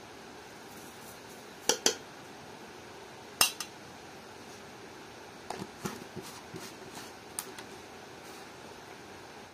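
A metal spoon clinking against an aluminium pot and a plastic sugar container as sugar is spooned over cut apples. There are two sharp clinks about two seconds in, another pair about a second and a half later, then a run of lighter knocks and clicks.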